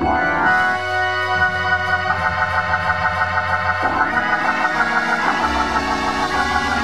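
Organ playing held chords over a bass line, changing chord about a second and a half in and again around four seconds, with a light steady beat of about four pulses a second from about two seconds in.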